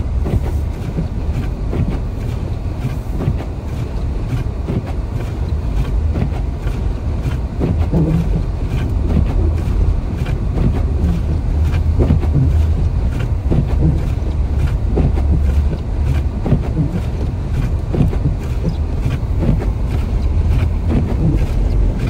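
Car driving on a snow-covered road, heard from inside the cabin: a steady low rumble of engine and tyres with a haze of road and wind noise.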